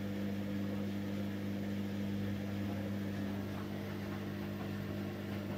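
Front-loading washing machine in a slow spin, drawing about 100 watts: the drum turning with a steady electric motor hum.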